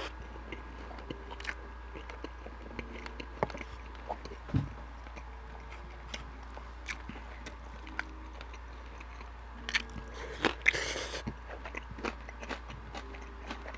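Close-miked eating sounds: chewing with wet mouth clicks and smacks. A louder, crunchier stretch comes about ten and a half seconds in.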